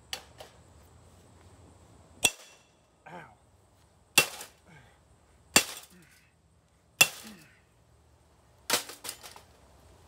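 A toaster oven being smashed with hard, sharp blows about every second and a half, each with a short ringing tail, then a quick run of three or four hits near the end.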